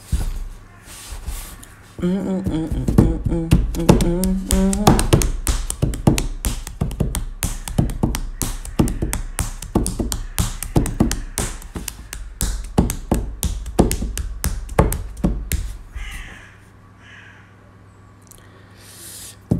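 A fast, uneven run of sharp clicks and taps over a low thumping, with pitched voice-like sounds in its first few seconds; it stops about three seconds before the end.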